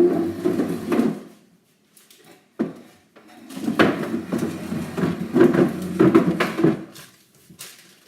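A chair dragged and knocked across the floor, scraping and clattering in two bouts, a short one at the start and a longer one from about three seconds in.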